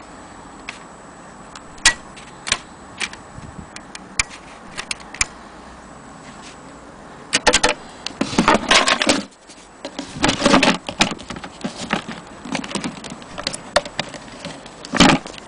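Mechanical clicks and rattling from an Imperial Companion portable typewriter being handled: a few separate clicks, then two spells of dense clatter, and a loud knock near the end.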